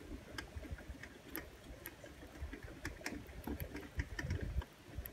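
BMX bike's chain drivetrain ticking in scattered clicks as the pedal crank is turned by hand while the chain is being oiled.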